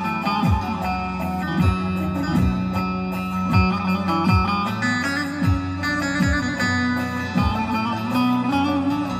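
Live Turkish folk music without singing: a bağlama (long-necked saz) plucked over a Korg keyboard's accompaniment, with deep drum hits that drop in pitch about once a second.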